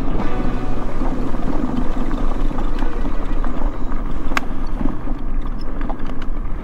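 Mobility scooter travelling along a trail: a steady mechanical running noise from its motor and wheels on the surface, with one sharp click about four seconds in.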